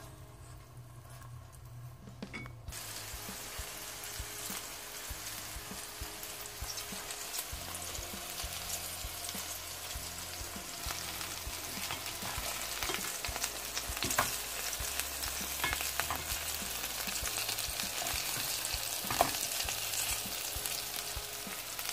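Oil sizzling and crackling in a frying pan under stuffed bell pepper rings. It starts about three seconds in and grows steadily louder, with a few sharper clicks along the way.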